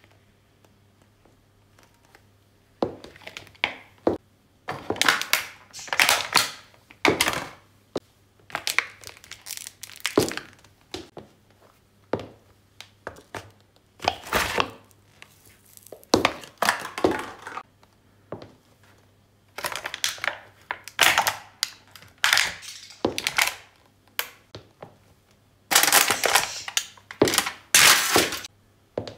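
A high-heeled shoe crushes a series of small objects one after another, giving repeated cracks, crunches and crumpling in clusters with short gaps. Among the objects are hollow plastic balls and paper cups being flattened. The crushing starts about three seconds in.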